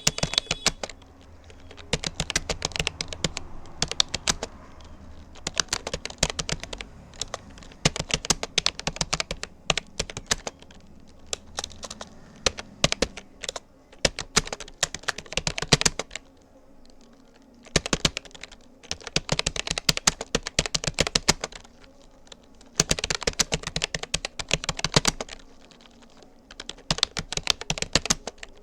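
Rapid typing on a Rapoo computer keyboard, key clicks coming in bursts of a few seconds with short pauses between them.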